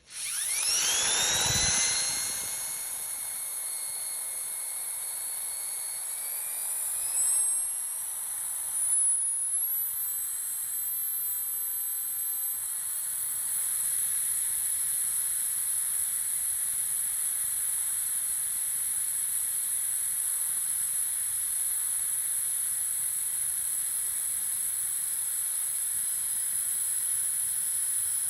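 High-speed drill motor spinning up with a sharply rising whine over the first two seconds, then running steadily with a high-pitched whine that creeps a little higher in pitch for the next ten seconds or so. Two brief louder swells come about seven and nine seconds in.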